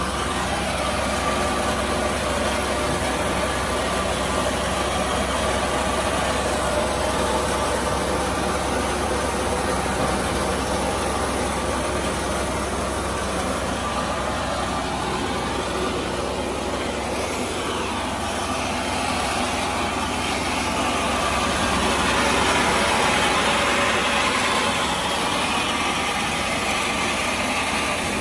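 A paddy thresher driven by a Mahindra 475 DI diesel tractor running steadily while threshing rice: a continuous mechanical drone and whir with a dense rushing noise from the drum and the grain and chaff, a little louder about three quarters of the way through.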